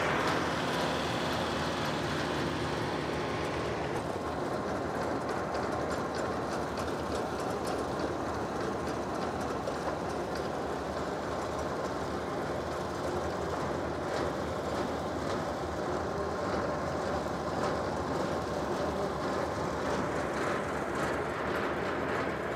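Compact tractor running with a 1st Products Seedavator working the turf: a steady mechanical clatter with many fast clicks from the attachment's shaking slicer tines and spiked rollers.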